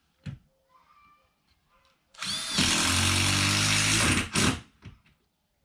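A power drill driving a roofing screw: a click, then the motor runs hard for about two seconds, its pitch dropping slightly as the screw pulls down, followed by a short second burst to seat it.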